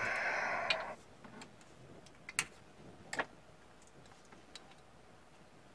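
Plastic oil bottle being handled and opened: about a second of rustling, then a few light, sharp plastic clicks as the screw cap is twisted off and set down.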